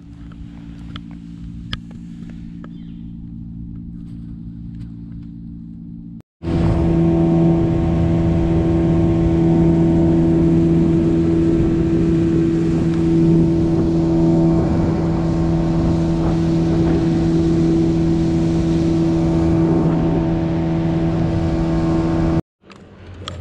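Boat motor running steadily with a few light clicks. After a brief cut about six seconds in, it is much louder at a constant speed with a steady rush of wind and water. It cuts off near the end.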